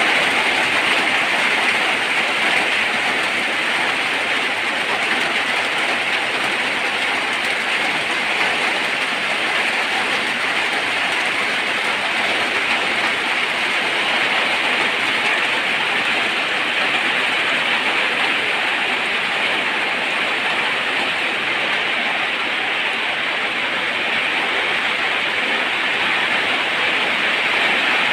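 Steady rain falling hard, an even hiss that doesn't change.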